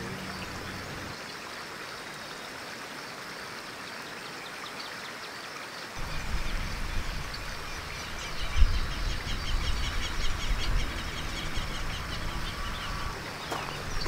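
Outdoor nature ambience with a steady hiss of running water. From about six seconds a low rumble joins, and from about eight seconds birds call in rapid repeated chirps.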